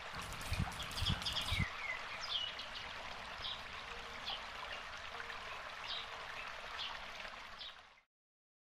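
Outdoor ambience: a steady hiss with small birds chirping every second or so, and three dull thumps in the first two seconds. It cuts off about eight seconds in.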